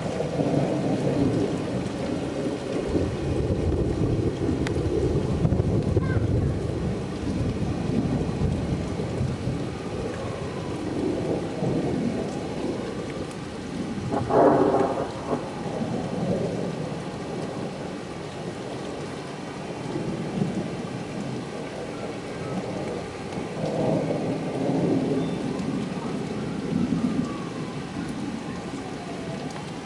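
Rain falls steadily through a thunderstorm, with rolling thunder. A long rumble runs through the first several seconds, a brief louder burst comes about halfway through, and more rumbles follow near the end.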